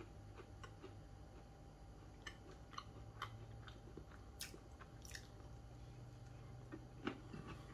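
Faint chewing of a soft oat biscuit, with small irregular mouth clicks and smacks.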